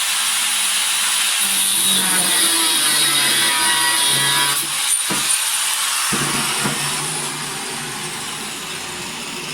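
Power tool, most likely an angle grinder, cutting a 10 cm piece of steel off the stock for a rake tooth. The running note climbs in pitch for a couple of seconds, there is a sharp click about five seconds in, and the noise eases after about seven seconds.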